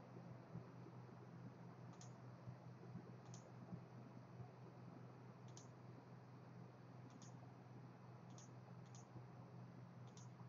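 Faint computer mouse clicks, about seven sharp, high-pitched ticks spaced irregularly, over a steady low electrical hum; otherwise near silence. The clicks match menu items being selected with the mouse.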